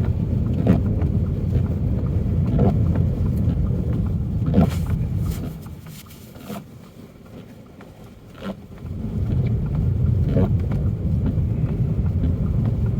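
Car cabin noise while driving on a snowy road: a steady low rumble of tyres and engine. A short knock comes about every two seconds. The rumble drops away sharply for about three seconds in the middle, then returns.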